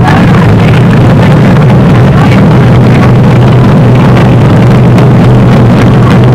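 Drag-car engines running loudly and steadily as the cars roll up to the starting line, a low drone that holds level without revving up.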